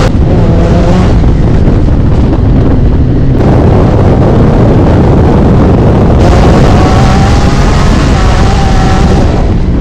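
Can-Am Maverick R side-by-side engine running hard in an off-road race, its pitch rising and falling with the throttle over a heavy low rumble. It starts to fade out near the end.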